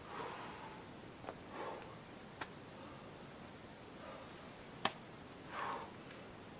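A bouldering climber's short, hard exhalations of effort, three puffs of breath while hanging on an overhang, with a few sharp taps as his hands and shoes move on the rock; the loudest tap comes near five seconds in.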